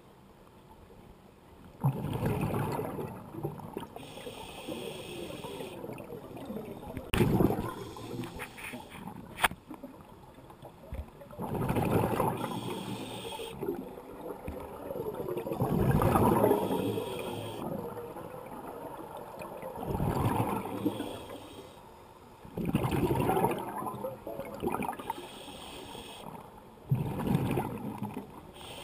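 Scuba diver's regulator breathing heard underwater: exhaled bubbles gurgle out in a burst about every four seconds, seven times, with a fainter hiss of inhalation between them. Two sharp clicks come about a third of the way in.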